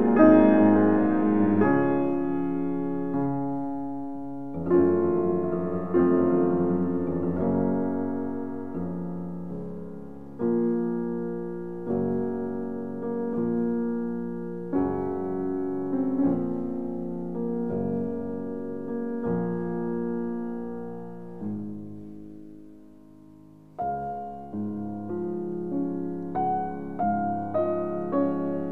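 Background solo piano music: slow notes and chords struck and left to ring and fade, with a short lull a little before the end.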